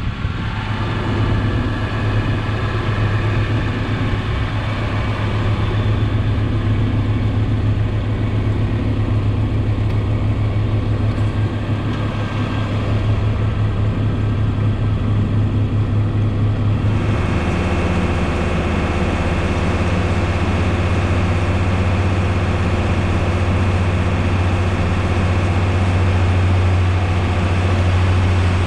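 A farm tractor's diesel engine runs steadily with a deep drone. About two-thirds of the way through, the sound shifts suddenly to a slightly lower drone with a steady higher whine on top.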